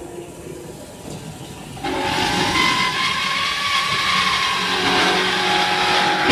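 DJ1250 CNC band sawing machine running: a low hum, then about two seconds in a sudden louder steady whine with hiss, one tone in it rising slightly and then falling.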